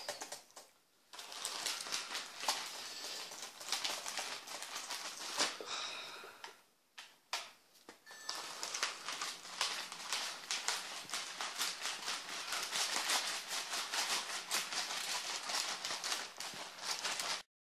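Small electric desk fan blowing, a noisy rush of air with rapid fluttering and rattling of papers caught in its draught. It breaks off for about two seconds midway, then starts again.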